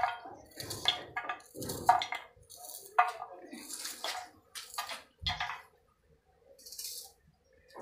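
A knife cutting and peeling on a steel plate: irregular sharp taps and clicks with small wet splashes, about two a second, stopping about five and a half seconds in.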